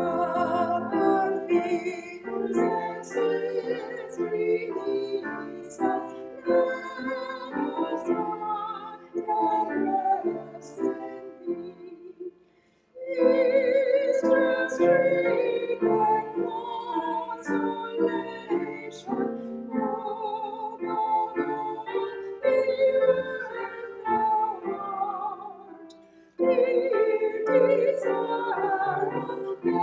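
A church anthem sung in a classical style, with a wide vibrato and instrumental accompaniment. It breaks off briefly twice, at phrase ends about thirteen and twenty-six seconds in.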